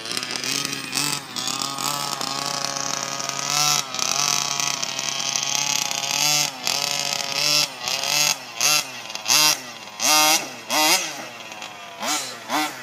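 Rebuilt baja's small engine, loud. It runs at high, fairly steady revs for the first few seconds, then is revved in a string of short throttle blips, each rising and falling in pitch.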